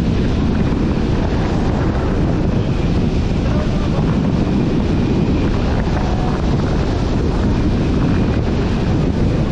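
Steady wind buffeting the microphone, a dense low rumble that does not let up.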